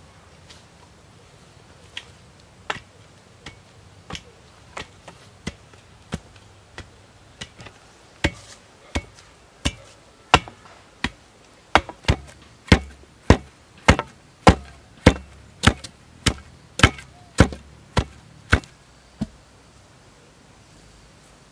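A bamboo pole rammed repeatedly down into the soil at the foot of a bamboo stake, tamping it in: a series of sharp knocks, light and spaced at first, then louder and steadier at about one and a half strokes a second, stopping a few seconds before the end.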